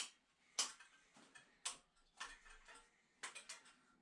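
Ratchet of a wrench clicking in short strokes as a bolt is tightened: a handful of sharp, faint clicks at uneven intervals, with a quick run of several together past the middle.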